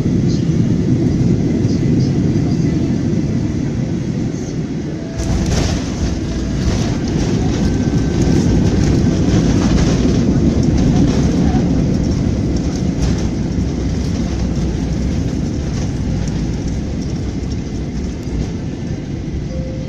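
Cabin noise of a Boeing 737 landing, heard from a seat over the wing: a steady rumble of engines and airflow, then the jolt of touchdown about five seconds in. After that comes a deeper rumbling with knocks and bumps as the wheels roll on the runway, growing louder for several seconds and then slowly easing as the plane slows.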